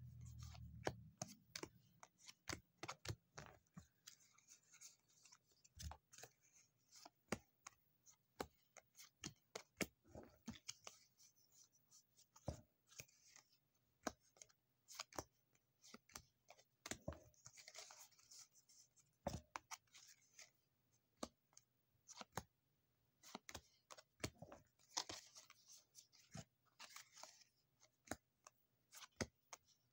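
Faint handling of stiff board-game cards: many light clicks and snaps as cards are thumbed off a hand and set down on a table, with a couple of brief papery swishes of cards sliding over one another, one near the middle and one near the end.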